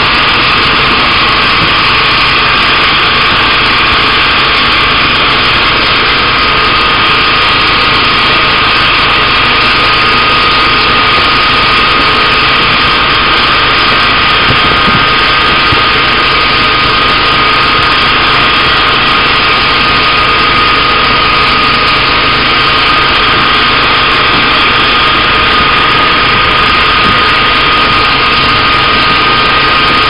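A fishing boat's engine running steadily and loudly, with a steady hum and no change in speed. The hiss of the boat's water-spray jets is mixed in with it.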